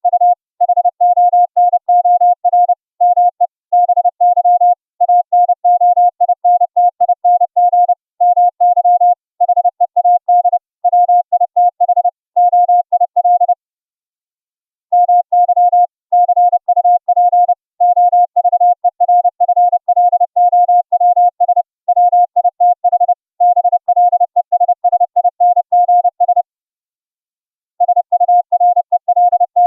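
Morse code (CW) as a single clean computer-generated tone from FLdigi, keyed on and off in dots and dashes at a brisk pace. There are breaks of a little over a second about halfway through and again near the end.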